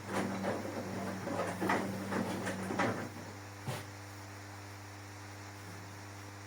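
Cecotec Bolero Dresscode 7410 front-load washing machine working, with a low hum and a series of clicks and knocks for about three seconds, one more knock a little later, then only a steady electrical hum.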